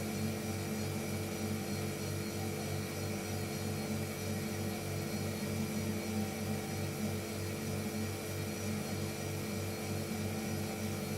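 Refrigerator running: a steady low hum with a few fixed tones and a slight quick throb underneath.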